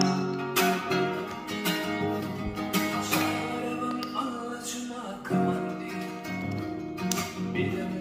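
Instrumental passage of a song, led by a plucked acoustic guitar.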